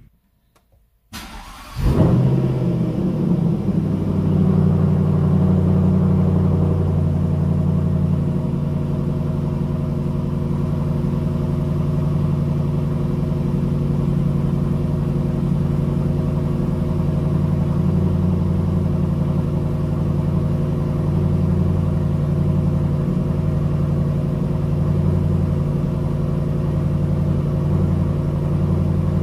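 Jaguar XFR's supercharged V8, with cat delete and aftermarket exhaust, starting about two seconds in and settling into a steady, deep idle. It is heard from the driver's seat.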